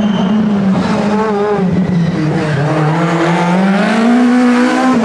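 Rally car engine revving hard as the car approaches along the street, its pitch dipping, then climbing steadily and dropping suddenly near the end.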